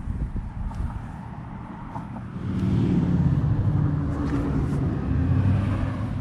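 A motor vehicle's engine running close by: a low rumble that grows louder about two and a half seconds in and eases near the end.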